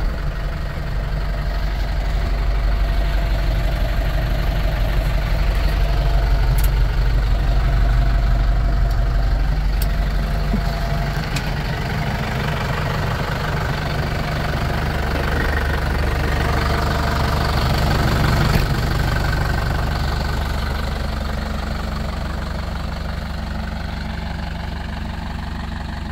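Kubota M9540 tractor's four-cylinder turbo-diesel engine idling steadily, slowly getting quieter near the end.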